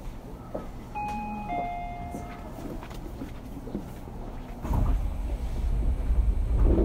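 Inside a Tobu 30000 series commuter train car: a two-note falling electronic chime sounds about a second in over the car's low hum and small clicks. About two-thirds of the way through, a loud low rumble of the train's running noise swells up.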